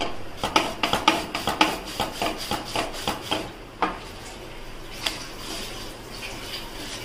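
A quick, irregular run of crisp crackles and clicks, thinning out after about four seconds with one last sharp click: a crisp roasted wheat khakhra crackling as it is pressed and handled.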